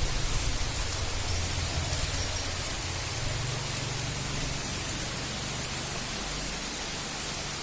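Heavy rain falling steadily, a dense even hiss, with a low rumble underneath.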